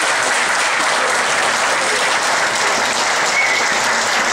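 Audience applauding steadily at the close of a comedy routine.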